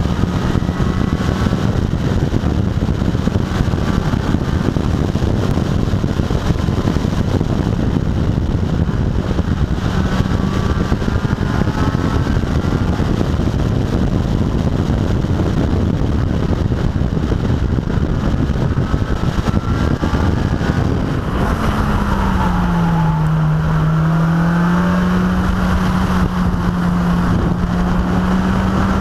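Car engine running at speed under heavy wind and road noise, heard from a camera mounted on the car's side. The engine note climbs several times as the car accelerates, dips about twenty-one seconds in, then climbs back slowly.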